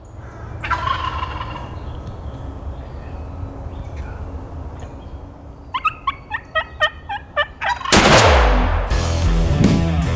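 A wild turkey gobbler gobbling about a second in, then a quick run of about ten short turkey calls. About 8 s in comes one loud shotgun blast that dies away over about a second, and music begins just after it.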